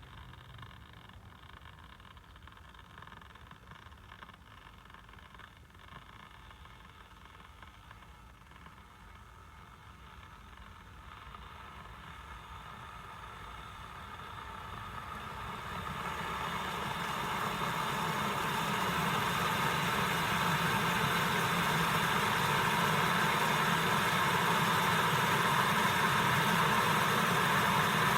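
Chefman 1.8-litre, 1500 W electric kettle heating water: a steady rushing noise that grows louder from about ten seconds in and then holds, as the water nears the boil.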